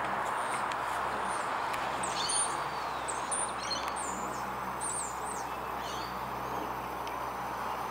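Steady drone of a De Havilland Dash 8-300's twin Pratt & Whitney PW123 turboprops as it climbs overhead, with birds chirping several times between about two and five seconds in.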